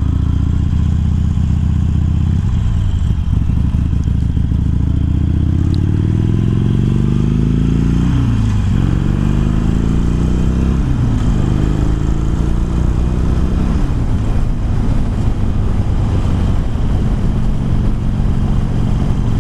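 Harley-Davidson Sportster Iron 1200 V-twin with Screamin' Eagle slip-on exhausts, pulling away and shifting up through the gears. The engine note rises and drops back three times at each upshift, then settles into a steady cruise.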